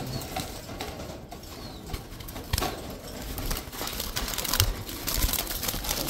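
Pigeons moving in wire loft cages: scattered wing flaps and rustling, loudest about two and a half seconds in and again near the end.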